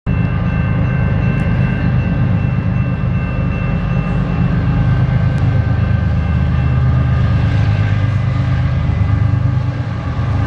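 Canadian National freight train with GE Evolution-series diesel locomotives approaching, a steady low engine rumble.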